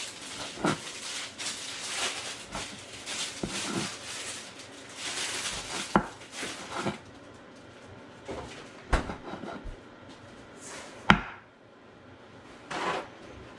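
Knife cutting tomatoes on a cutting board: irregular knocks of the blade against the board, thinning out to a few sharper taps in the second half.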